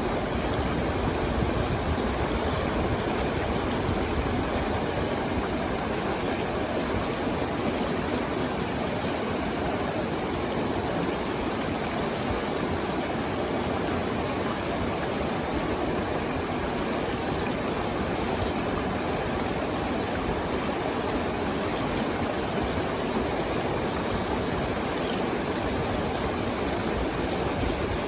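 Stream water flowing in a steady, unbroken rush.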